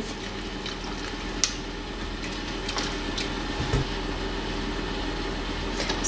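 Saucepan of butter, milk and water coming to the boil on the hob: a steady hiss with a few faint clicks.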